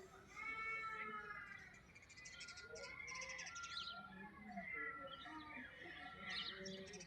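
Birds chirping and calling, a mix of short high chirps and held whistled notes.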